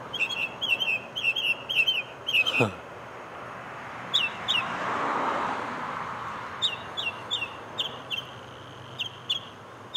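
A mockingbird singing: quick, high chirps repeated several times in a run, a pause with two notes, then another run of repeated chirps. Traffic noise swells and fades underneath about halfway through.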